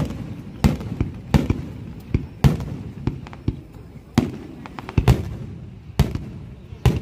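Aerial firework shells bursting in a steady barrage, a sharp bang about once a second, each fading out in a low rumble.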